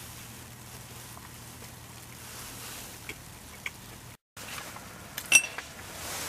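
A steady soft hiss with a low hum, broken by a short cut, followed by a few light clicks and one sharp metallic tink with a brief high ring about five seconds in.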